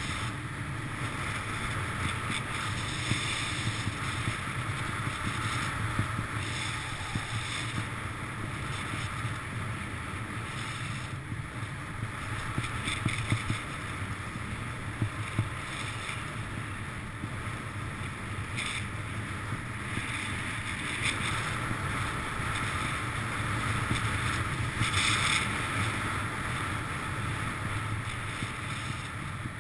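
Wind rushing over the camera's microphone during a downhill ski run, with skis hissing on packed snow and a few brief louder scrapes now and then.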